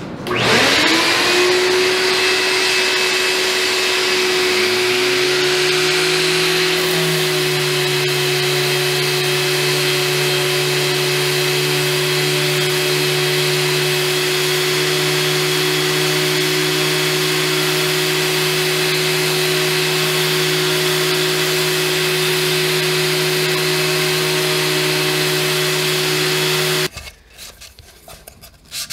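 Random orbital sander starting up and running steadily while sanding the wood of a box. About five seconds in, a second, deeper motor hum rises to speed beneath it. Both cut off abruptly near the end, leaving faint rubbing of sandpaper worked by hand.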